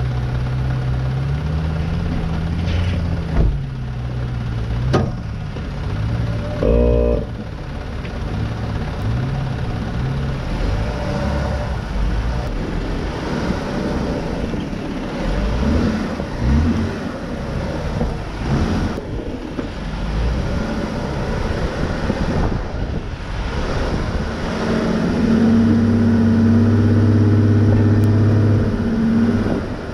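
Jeep engine running and revving as it crawls up a rocky off-road climb, with a few knocks from the rocks. The engine grows louder near the end.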